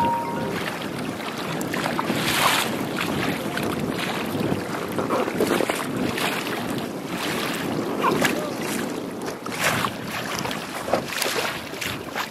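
Wind buffeting the microphone over choppy water, with small waves slapping and splashing irregularly against a kayak hull.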